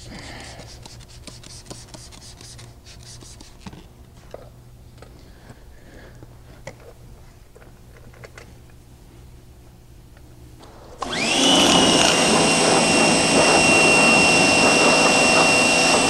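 Faint clicks of a hand spray bottle, then about eleven seconds in a pressure washer starts with a rising whine and runs loudly and steadily as its water jet rinses acid wheel cleaner off an aluminum wheel.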